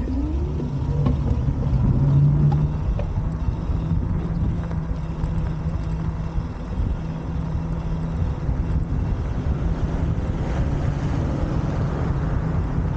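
Moped engine running as the bike rides along: a steady low engine hum that grows louder over the first couple of seconds, then holds steady.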